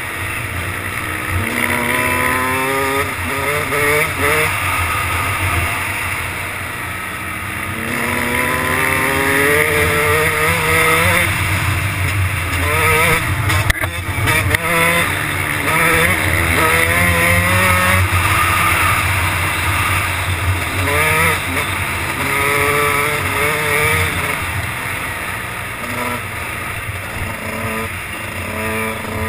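Kawasaki motocross bike's engine, heard close from a helmet camera, revving up through the gears in repeated rising sweeps that drop back at each shift. A sharp knock sounds about halfway through.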